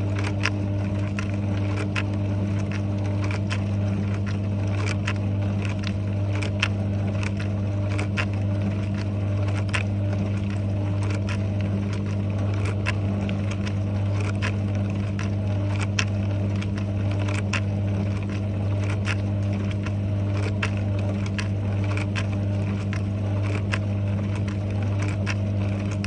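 Dishwasher running mid-wash: a steady low hum with water spraying inside the tub, and irregular sharp ticks and taps several times a second.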